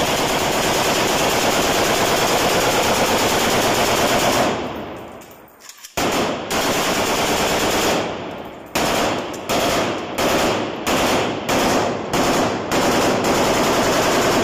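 AK-47 assault rifle (7.62×39 mm) fired on full automatic: one long burst of about four and a half seconds, a second burst of about two seconds, then a string of short bursts about twice a second.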